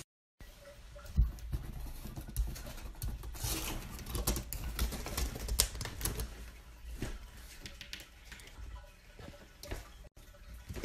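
Horizontal window blind slats clattering and clicking irregularly as a cat pushes its way through them.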